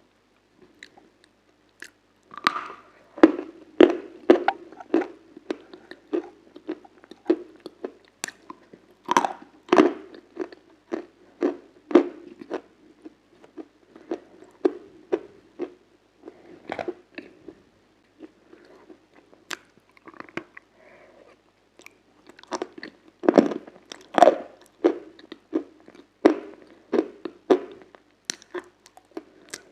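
Close-up crunching and chewing of a crisp food: sharp cracks at each bite, then a run of quick crackling chews. The crunching thins out past the middle and comes back louder and denser a few seconds later.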